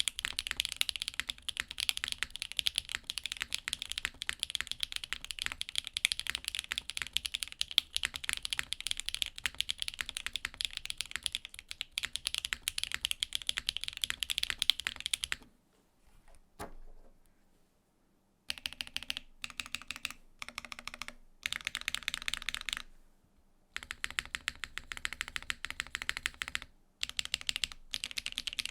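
Vøid65 custom mechanical keyboard being typed on: Akko x HMX Cilantro tactile switches on a top-mounted nylon plate, with GMK Panels keycaps in a polycarbonate case with a copper bottom. Fast, continuous typing for about fifteen seconds, then a pause of about three seconds, then shorter bursts of typing separated by brief pauses.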